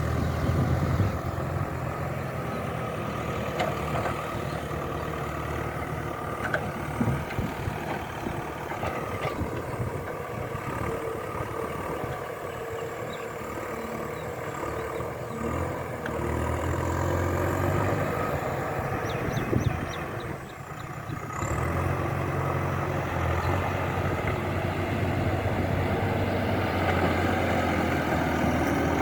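An engine running steadily at low speed, easing off briefly about two-thirds of the way through and then picking up again.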